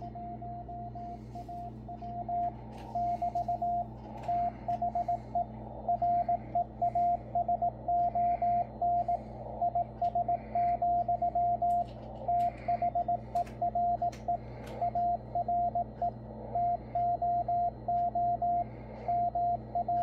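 Morse code from the W1AW code-practice transmission, received on 80 metres through a Yaesu FTdx10 transceiver: a single steady beep keyed into dots and dashes over constant band hiss and hum. The keying starts about two and a half seconds in.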